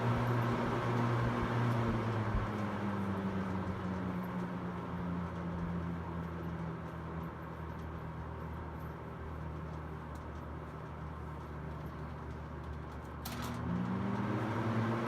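Hunter Model 11027 20-inch box fan motor running with a steady hum and the rush of its blades. A couple of seconds in, the hum sinks slowly in pitch and gets quieter as the fan slows to a lower speed. Near the end a sharp switch click comes, and the hum climbs quickly back up as the fan speeds up again.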